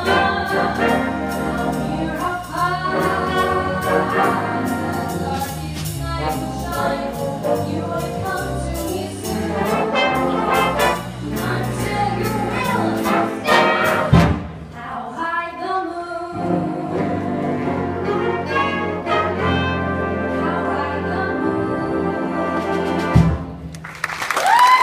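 A woman singing a song live to instrumental accompaniment. The song ends near the end, and a rising whistle and applause break out.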